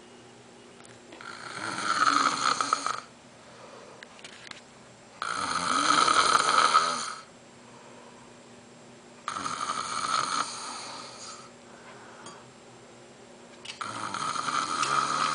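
A man snoring in his sleep: four long, loud snores, one about every four seconds, the last running on past the end.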